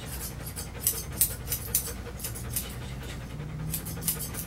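Large dog panting quickly and rhythmically, about three or four breaths a second.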